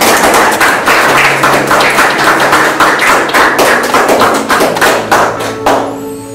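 A small group of people clapping and applauding, a dense patter of hand claps that dies away near the end.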